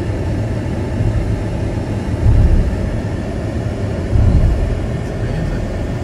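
Steady low road rumble of a car driving along a highway, heard from inside the vehicle, with two brief louder low surges about two and four seconds in.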